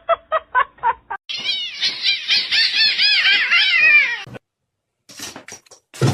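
Cat meowing: a quick run of short, high meows, then about three seconds of rapid, warbling high cries that cut off suddenly. A few short scuffling noises follow near the end.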